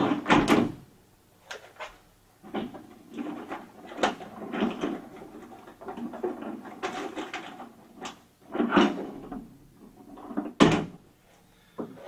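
Paper dust bag being fitted inside a shop vacuum's polyamide tank and the tank being handled: irregular plastic knocks, rustling and scraping, with one sharper knock near the end.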